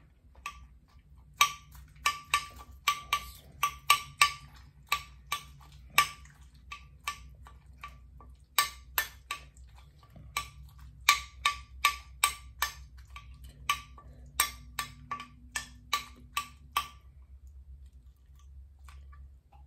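Metal spoon clinking and scraping against a bowl while eating: a quick, irregular run of sharp taps, each with a short ring, stopping near the end.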